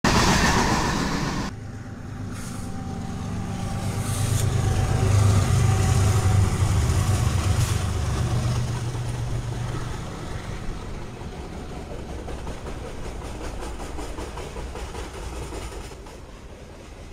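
An Amtrak passenger train rushes past at speed, cut off suddenly after about a second and a half. A freight train follows: a diesel locomotive's low engine drone swells and fades by about ten seconds in, then the freight cars roll steadily past on the rails.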